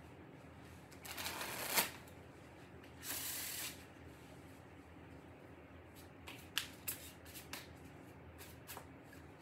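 A deck of tarot cards being shuffled by hand: two brisk shuffles about one and three seconds in, the first ending with a sharp snap, then a few light card snaps and taps.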